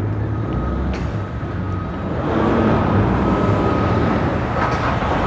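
Twin outboard motors on a center-console boat running as it pulls away from the ramp. The engine sound grows louder about two seconds in.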